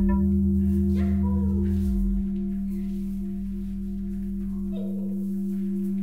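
A sustained, ringing musical drone of steady held tones over a low hum, with faint voices briefly about a second in and again near the end.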